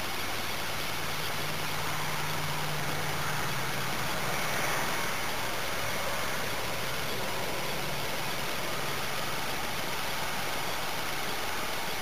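Steady hiss from a tiny recorder's microphone, with a thin high steady tone. A faint low hum, like a distant idling engine, comes in twice and fades.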